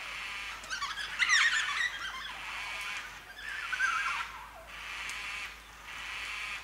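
White-tailed black cockatoos calling: a cluster of overlapping squawks and wails about a second in, the loudest part, and a single falling wailing call about four seconds in. Behind them a high hiss swells and fades every second or two.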